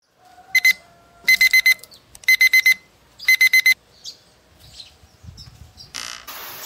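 Phone alarm beeping in quick groups of four high electronic beeps, a group about every second, stopping after about four seconds. Near the end, a shower handle is turned and the steady hiss of running shower water starts.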